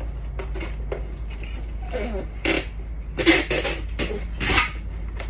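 Packing tape being pulled off a handheld tape-gun dispenser onto a cardboard box, in several short, noisy pulls. The loudest pull comes about three seconds in.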